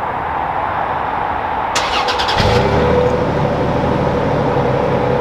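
The 2021 Toyota 4Runner's 4-litre V6 being started: the starter cranks briefly about two seconds in, then the engine catches and settles into a steady idle.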